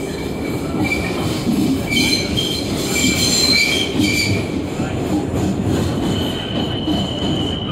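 Inside an R62A subway car, the running 6 train makes a loud steady rumble and rattle, with short high-pitched wheel squeals coming in bunches a couple of seconds in. A steady high whine sets in near the end.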